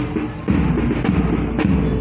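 Marching music with a heavy drum beat, the strong beats falling a little more than half a second apart.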